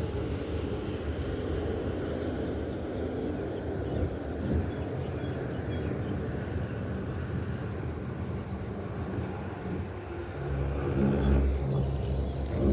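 Low, steady engine rumble, with a louder engine hum of steady pitch coming in about ten and a half seconds in.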